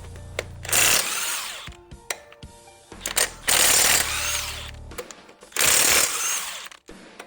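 Impact wrench with a 17mm socket undoing the wheel bolts, in three loud bursts of hammering about a second each, over background music.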